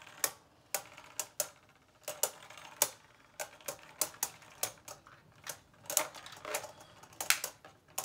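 Two Beyblade Burst spinning tops clashing in a plastic stadium: irregular sharp clicks, a few each second, bunching into a quicker run near the end.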